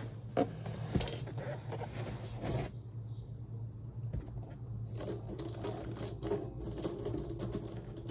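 Handling noise from a new five-string banjo: scattered clicks, taps and rubbing as the instrument is handled and its strings and tuning pegs are worked by hand.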